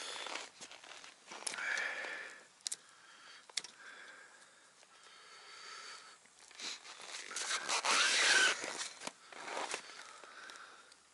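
Close-up rustling and crunching in snow, with scattered light clicks and knocks from hands working at the tow sled's handlebar. The loudest rustle comes about eight seconds in.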